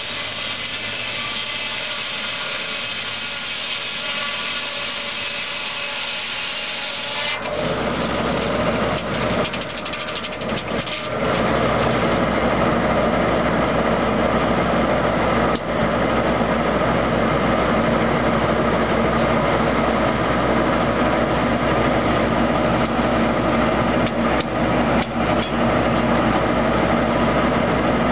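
Foley Belsaw circular sawmill driven by a tractor's PTO, its large blade sawing through a log. About seven seconds in the sound suddenly becomes fuller and deeper, stays uneven for a few seconds, and from about eleven seconds on runs louder and steady.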